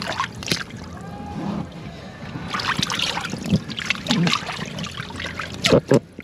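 Water sloshing and splashing as a hand swishes through shallow water in the bottom of an inflatable dinghy, in irregular bursts with a louder splash near the end.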